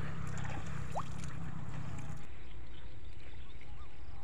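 Water sloshing around a man wading chest-deep, over a low rumble of wind on the microphone. About two seconds in, the sound drops to a quieter open-air background with a few faint short bird chirps.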